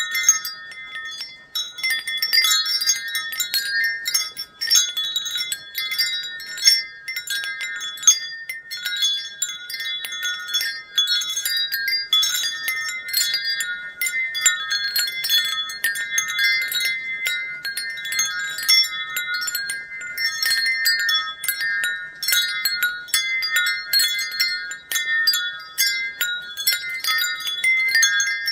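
Wind chimes playing: several high tones ring together and overlap, struck again many times a second without a break.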